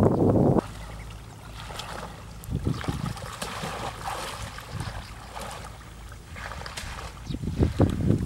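Water sloshing and splashing as people wade through a shallow muddy canal, with small clicks and splashes and louder bursts of low rumbling near the end.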